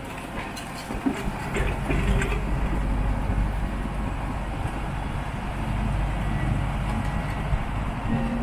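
Liebherr 712 crawler dozer's diesel engine running under load as the machine drives off, getting louder about a second and a half in, with the clanking of its steel tracks.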